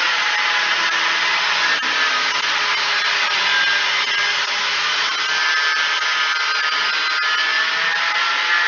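Abrasive cut-off saw grinding through a steel bar: a loud, steady grinding noise with a thin whine that drifts slightly in pitch as the disc is fed into the cut.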